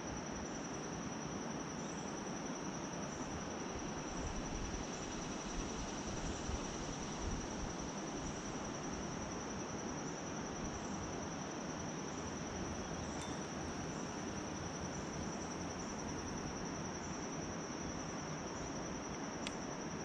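Insects trilling steadily at one high pitch, over a steady background hiss.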